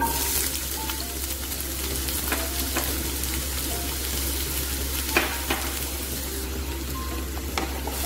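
Chopped red onions sizzling in hot oil in a nonstick frying pan, a steady crackling hiss that starts as they go in, with a few sharp knocks of a spatula stirring them against the pan.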